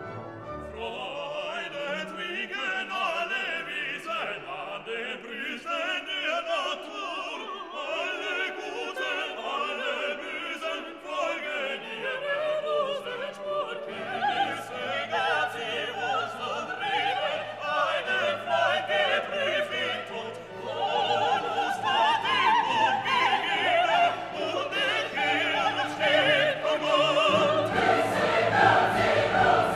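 Background classical music: operatic singing over an orchestra, growing louder about two-thirds of the way through, with a deeper bass part entering near the end.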